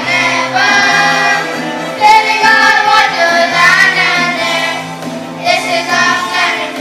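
Children singing a song to a steady backing track.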